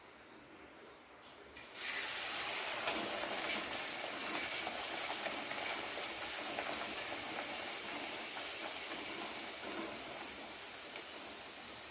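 Hot oil sizzling as a rolled luchi (flour bread) is deep-fried: the sizzle starts suddenly about two seconds in when the dough goes into the oil, then continues as a steady, dense hiss.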